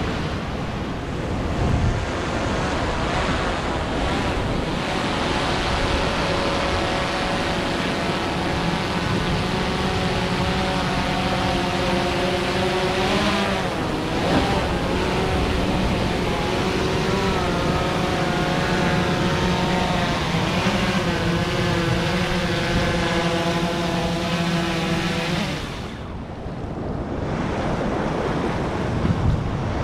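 Swellpro Splash Drone 4 quadcopter flying overhead, its rotors humming in several steady tones that waver in pitch around the middle and cut off suddenly near the end, over the wash of surf on the rocks.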